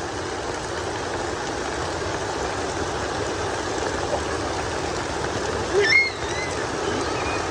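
Steady, even rushing of heavy rain and running water. About six seconds in, a brief high-pitched cry rises and falls over it.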